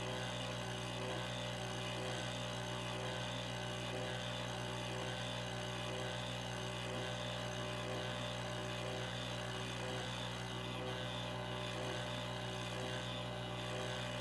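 Pocket NC desktop CNC mill's spindle running an end mill as it cuts inside a brass tube, with a compressed-air blower playing on the cut to clear chips: a steady hum with a whine above it.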